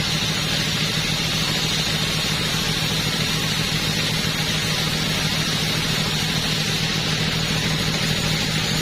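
Two-stroke chainsaw engine running at a steady speed, its note holding constant with no revving up or down.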